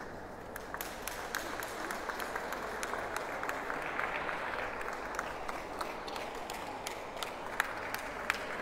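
Audience applauding, many hands clapping at once, starting about half a second in and carrying on steadily.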